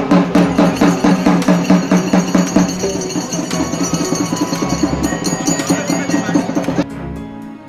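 Drums beaten in a fast, loud rhythm, which cuts off abruptly near the end.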